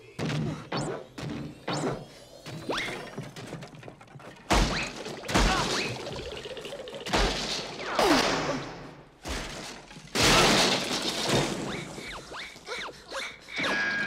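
A string of cartoon sound effects played one after another: sudden crashes, smashes and thuds, some long and noisy, with a few sliding whistle-like tones, one falling in pitch about eight seconds in.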